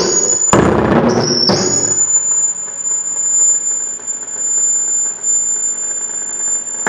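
Electronic noise music: a steady high-pitched whine held over a dim hiss and low rumble, after a few sudden cuts and a sharp burst in the first second and a half.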